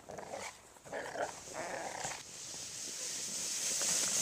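A dog making short sounds in the first second or so, followed by a steady hiss that grows louder toward the end.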